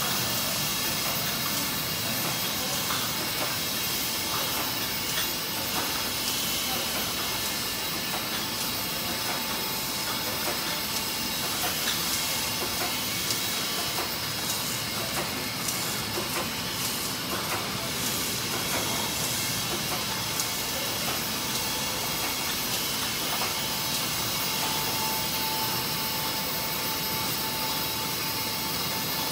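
Bottling and packaging line machinery running: a steady mechanical hiss and rumble with faint scattered clicks. A faint steady whine joins near the end.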